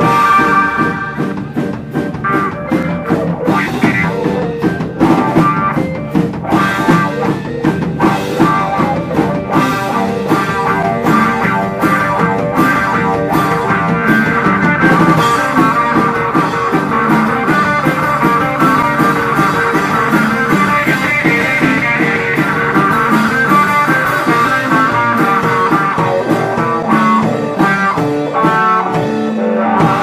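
Live psychedelic rock band playing an instrumental passage: electric guitar over a drum kit and a Vox Jaguar combo organ.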